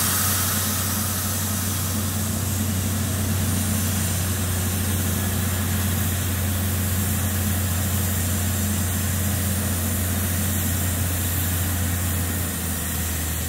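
Borehole drilling rig's engine running steadily under load while the borehole is flushed, with a constant hiss of water and air spraying out of the hole.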